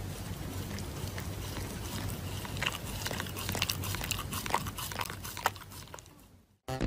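Shiba Inu biting and chewing on a paper sheet face mask: irregular small clicks and rustles over a steady background hiss, thinning out near the end.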